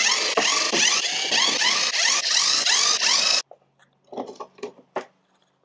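Cordless drill running, backing a drywall screw out of a plywood crate lid, with a fast repeating rasp. It cuts off suddenly about three and a half seconds in, followed by a few light knocks and clicks.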